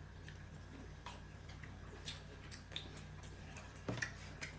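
Faint, irregular small clicks and taps over a steady low hum, with one slightly louder click near the end.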